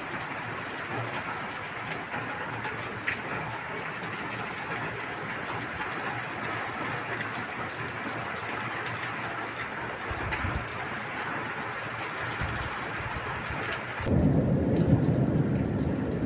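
Steady rain falling, with a fine patter of drops. About fourteen seconds in it gives way abruptly to a louder, deep rumble.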